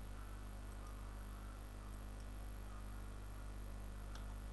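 Steady low electrical hum and background hiss from the recording microphone, with a faint click shortly before the end.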